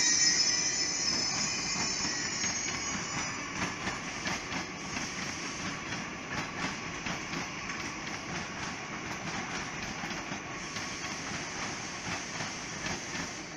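Trains running through a large station's track field: a steady rail rumble with repeated wheel clicks over rail joints and points. A high whine fades out over the first few seconds.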